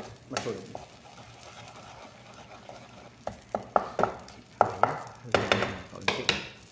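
Egg omelette frying in a pan with a low sizzle, then a spatula scraping and tapping against the pan several times in the second half, the scrapes being the loudest sounds.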